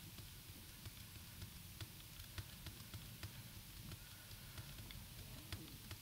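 Faint, irregular clicking, a click or two a second, from the computer being operated to step through code, over a low steady hum.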